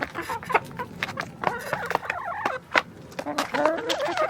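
Backyard chickens clucking, with short wavering calls from about a second and a half in, over a run of sharp taps throughout.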